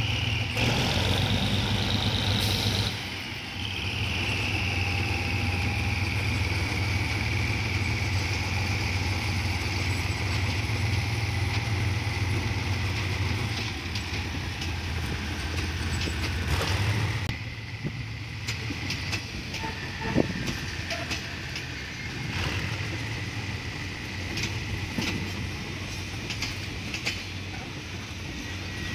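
Diesel engine of a GEK-class shunting locomotive running steadily as it slowly hauls a rake of passenger coaches past, with a high wheel squeal that falls in pitch. After about 17 seconds the engine note fades as the coaches roll by, their wheels clicking over rail joints under a thin, steady squeal.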